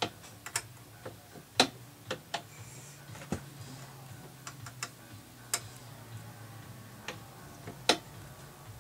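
Irregular sharp metallic clicks and taps from the Rock-ola 443 jukebox's selector mechanism as its gear wheel and parts are handled and turned by hand, over a low steady hum.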